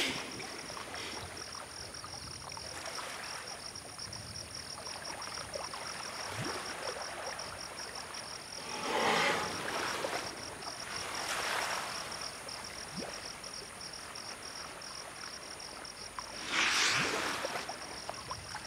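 A steady, high, rapidly pulsing chorus of calling insects in a rainforest clearing, with water splashing and sloshing as forest elephants wade and drink, swelling three times, twice near the middle and once near the end.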